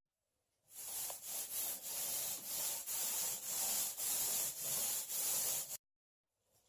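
Rhythmic rubbing strokes of something worked back and forth, about two a second, cutting off suddenly near the end.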